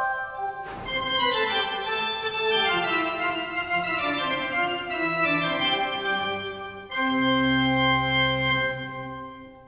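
Historic Italian pipe organ of the Roccatagliata/Ciurlo workshop (1794) playing the closing bars of a sonata: a line stepping downward under held notes, then a loud final chord about two seconds in from the end's start, held briefly and dying away in the church's reverberation near the end.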